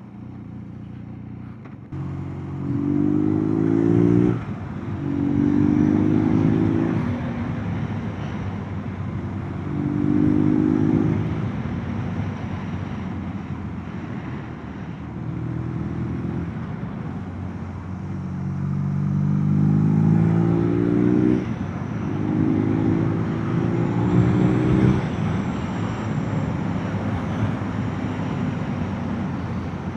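Motorcycle engine accelerating through the gears: the engine note climbs in pitch and drops back at each shift, several times over, with steady wind rush throughout.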